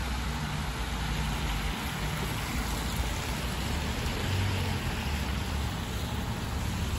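Steady hiss of tyres on a rain-soaked road with a low engine rumble as a police van and a police patrol car drive slowly past.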